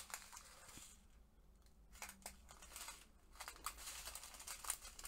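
Faint crinkling and rustling of small plastic bags of diamond-painting drills being handled. It pauses about a second in, then picks up again with scattered light crackles.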